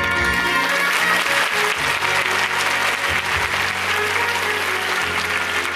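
Theatre audience applauding over the musical's upbeat curtain-call music; the clapping swells in about a second in and carries on over the music.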